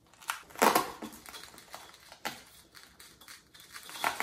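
Handling noise as hands fasten the Velcro straps that hold LED light strips to a light box's foil-lined panel: a few short scraping rustles and clicks, the loudest a little under a second in.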